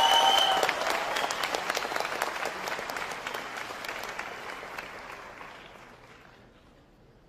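Audience applauding, many hands clapping, loudest at the start and dying away over about six seconds.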